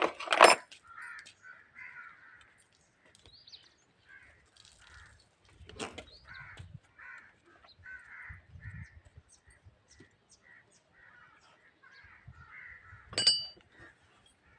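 Crows cawing repeatedly, short calls one after another. A few sharp knocks cut across them, the loudest right at the start, with others about six seconds in and near the end.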